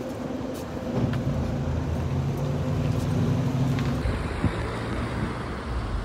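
Street traffic: a motor vehicle's engine running close by, a low steady hum strongest from about one second in until an abrupt change about four seconds in, after which only a low rumble remains.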